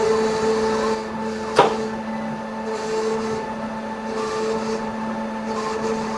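Plus Mill S5 dental milling machine's spindle whining steadily as a thin end mill cuts a zirconia disc, the cutting noise swelling and fading about every second and a half. A sharp click comes about a second and a half in.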